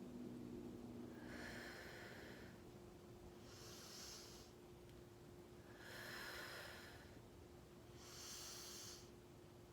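A person's slow, deep breaths, alternating inhale and exhale in the paced rhythm of a guided breathing exercise. There are about four soft breaths, roughly one every two seconds, over a faint steady hum.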